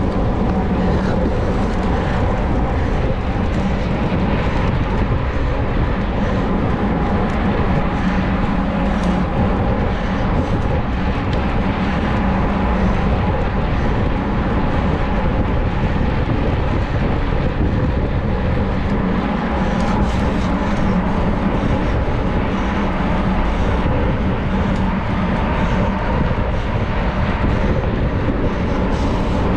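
Mountain bike ridden at race speed: a steady rush of wind on the microphone mixed with the rumble of the tyres rolling, with no let-up.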